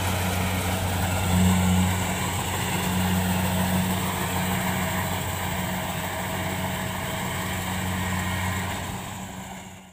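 Kubota rice combine harvester's diesel engine running steadily as it works through the paddy, a constant low drone that fades out near the end.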